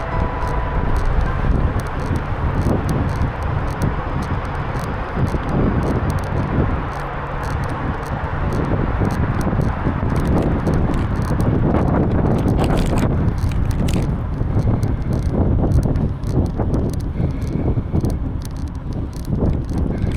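Wind buffeting the microphone of a moving bicycle, over a steady rumble of riding along a paved bike path. Short gusty thumps come and go irregularly.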